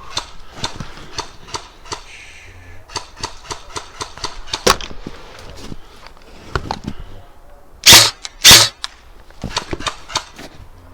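Airsoft guns firing scattered single shots, sharp pops and clicks at irregular spacing. Two much louder bangs close to the microphone about eight seconds in.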